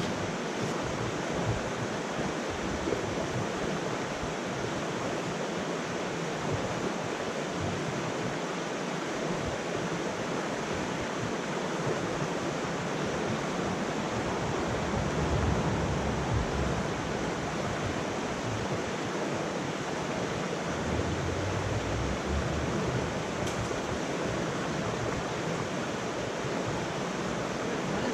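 Small mountain creek's water rushing steadily over rocks, an even hiss.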